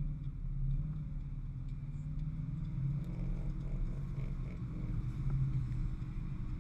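Off-road 4x4's engine running at low revs as it crawls through mud, a steady deep drone picked up by a camera mounted on the bonnet.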